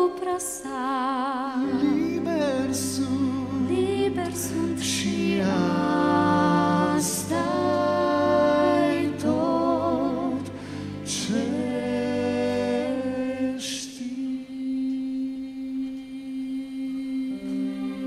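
Live choral-orchestral ballad: a solo voice sings long notes with wide vibrato over soft orchestral accompaniment. About 14 seconds in the voice stops and a quiet held chord carries on.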